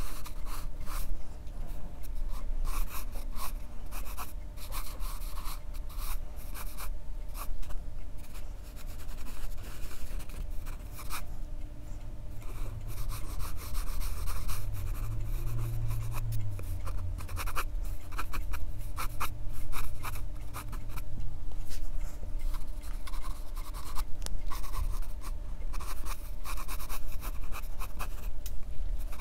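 Pencil scratching on paper in quick, repeated sketching strokes, with a faint steady hum underneath.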